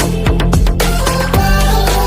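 Pop background music with a steady beat and deep bass.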